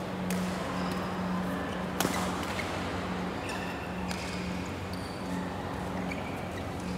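Badminton rackets striking shuttlecocks in a reverberant indoor hall: scattered sharp smacks, the loudest about two seconds in, over a low hum that comes and goes.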